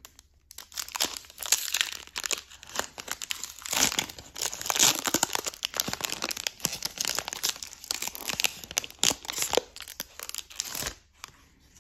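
Foil wrapper of a Pokémon trading-card booster pack being torn open and crinkled in the hands, a dense, irregular crackling rustle that dies away near the end.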